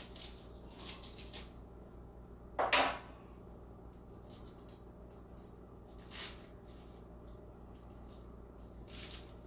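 Dry onion skin being peeled off by hand: short, scattered papery crackles and rustles, with one louder brief noise a little under three seconds in.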